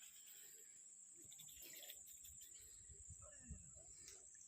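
Near silence with a faint, steady, high-pitched insect drone of crickets and a few soft rustles.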